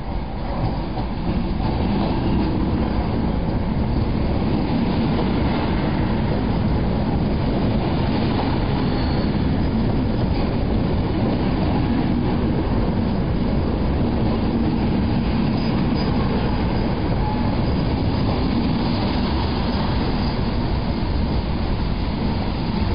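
Electric multiple unit train arriving and running close past along the platform: the steady noise of its wheels on the rails, which grows louder about a second in.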